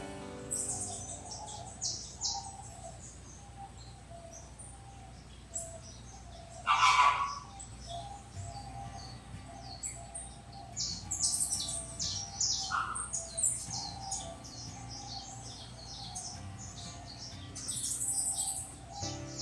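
Small birds chirping: many short, high-pitched chirps throughout, with one much louder, lower call about seven seconds in and a shorter one near thirteen seconds.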